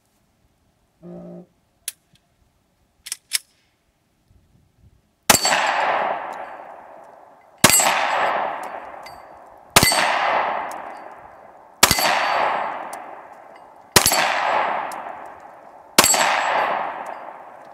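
Six 9mm pistol shots from a Smith & Wesson M&P Shield, about two seconds apart. Each hit rings off a steel plate target and fades over about two seconds.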